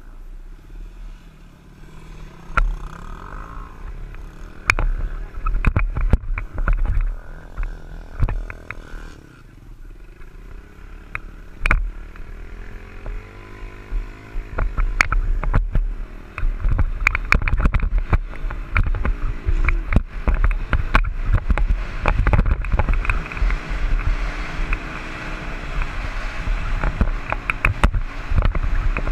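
Dirt bike engine heard close up from the rider's helmet, running quietly at first, then revving up and down as the bike rides across sand, with wind rushing over the microphone and sharp knocks from bumps.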